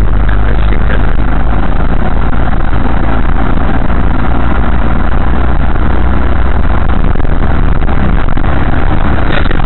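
Manual car's engine and road noise heard from inside the cabin while driving: a loud, steady low rumble.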